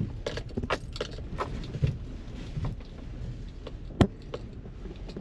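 Scattered light clicks and knocks over a low rumble, with one sharp click about four seconds in.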